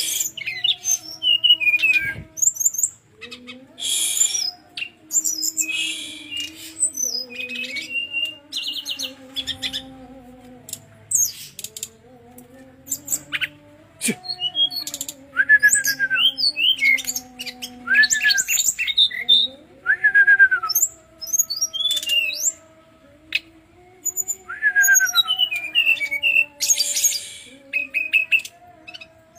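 Brown-chested jungle flycatcher singing a long, varied run of phrases: rapid high trills, sharp chirps and several downward-slurred whistles. A faint low hum rises and falls underneath.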